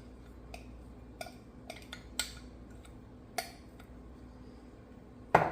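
A few light taps and clinks of kitchen utensils against a bowl and counter, with a louder double knock near the end.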